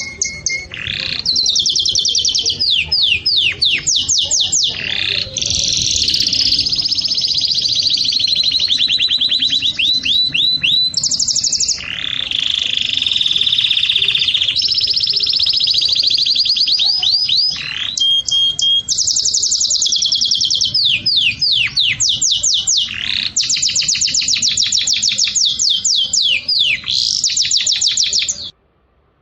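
A songbird singing loudly and almost without pause: fast trills and runs of rapidly repeated high notes, with brief breaks between phrases. It cuts off suddenly near the end.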